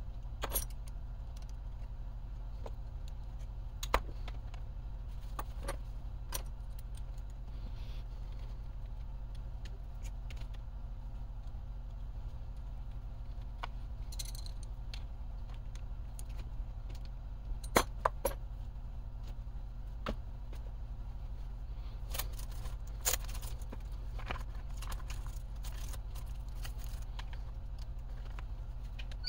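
Scattered light clicks and metallic clinks of hex drivers and small parts being worked on a plastic RC car chassis, with a sharper click about four seconds in and a pair of louder clinks past the middle, over a steady low hum.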